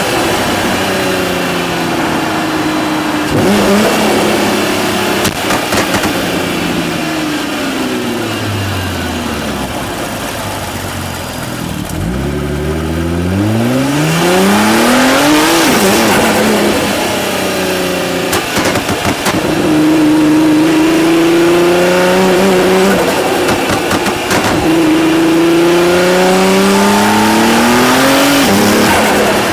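Nissan GT-R R35's tuned 3.8-litre twin-turbo V6 on the road. The engine pitch falls as the car slows, bottoming out about twelve seconds in, then climbs hard through several rising pulls, each cut short by a quick gear change.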